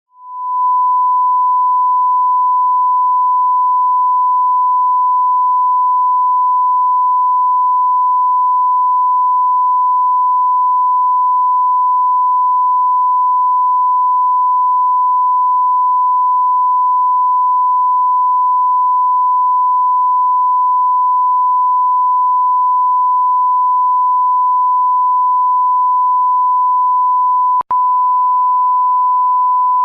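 A pure 1 kHz sine-wave test tone, the kind TV stations played during transmission breaks. It is loud and holds one steady pitch after a quick fade-in. Near the end it cuts out for a split second with a click, then resumes.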